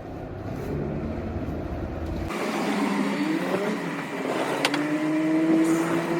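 A motor vehicle driving, its engine note rising slowly as it speeds up in the second half, with a couple of sharp clicks.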